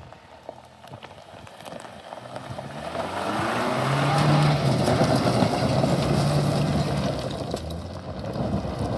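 A 2024 Toyota Tacoma TRD Off-Road's engine working under load as the truck climbs a steep hill with a little momentum. It grows louder over the first few seconds, then holds steady.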